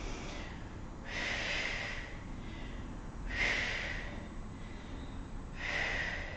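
A woman breathing out hard, three times about two seconds apart, each a short hissing rush of breath, from the effort of a seated twisting core exercise.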